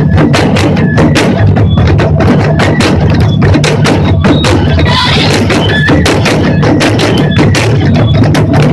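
Japanese taiko drums played by an ensemble: a fast, dense run of loud strokes that keeps going without a pause.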